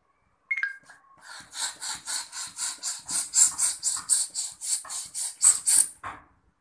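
Red hand-held balloon pump being worked in rapid strokes, about four a second, each stroke a puff of air as a latex balloon is inflated. A short squeak comes just before the pumping starts.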